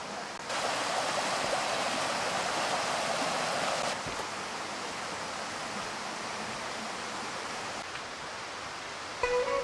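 Steady rushing noise of running water. It is louder for the first few seconds, then drops to a softer hiss after a cut, and music begins just before the end.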